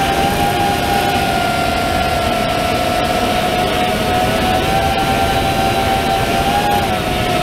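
FPV quadcopter's brushless motors and propellers whining at a high, steady pitch that rises and dips slightly with the throttle, over a rush of air noise.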